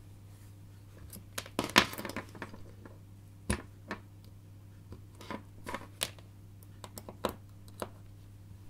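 Hands handling multimeter test leads and a small voltage-reference circuit board on a tabletop: scattered clicks, taps and rustles as the probes are unclipped and reattached and the board's output is reset. The loudest taps come about a second and a half and three and a half seconds in, over a faint steady hum.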